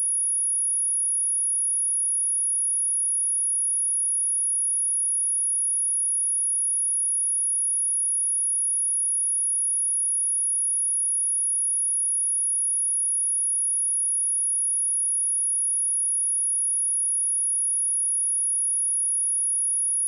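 A single steady 10367 Hz sine tone, a high-pitched whistle-like pure tone held unchanged at a constant level, used as a speaker test and speaker-cleaning tone.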